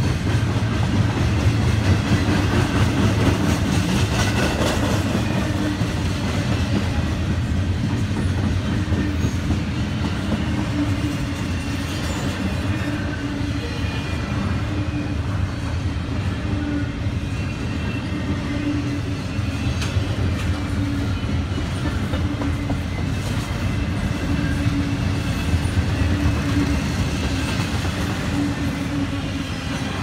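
Double-stack intermodal freight cars rolling steadily past, their steel wheels running on the rails in a continuous low rumble.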